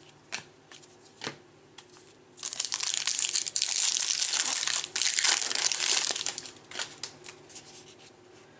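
Plastic foil wrapper of a Bowman baseball card pack being torn open and crinkled for about four seconds, from about two and a half seconds in. Light clicks of cards being handled come before and after it.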